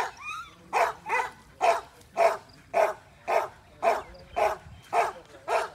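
A Gultair dog barking over and over in a steady run, about two barks a second.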